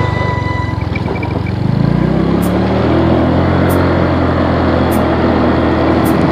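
A motor vehicle's engine running, its note shifting in pitch about two seconds in and then holding steady.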